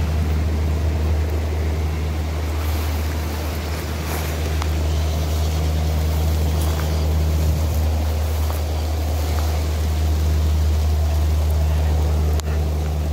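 Wind blowing through the trees ahead of a thunderstorm, an even rush over a steady low rumble.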